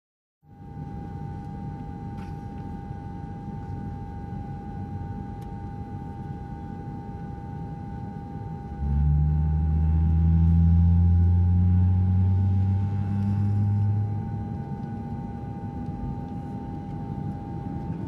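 Airplane engines starting, heard from inside the cabin: a steady high whine over a low rumble, with a much louder low drone cutting in about nine seconds in and easing back about five seconds later.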